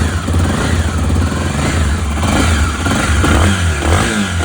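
Honda XRE 300 single-cylinder four-stroke engine running and being revved up and down again and again, its pitch rising and falling with each blip of the throttle. It runs freshly fitted with a new oil-pump gear, and the abnormal knock under hard acceleration is gone.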